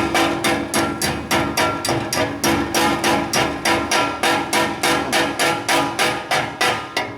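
Rapid hammer strikes on the steel exhaust pipe, about four or five a second, each one ringing.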